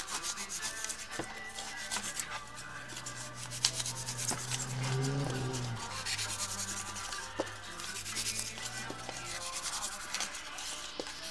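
Polystyrene packing foam being broken and crumbled by hand: a run of short crackles and rubbing, over faint background music.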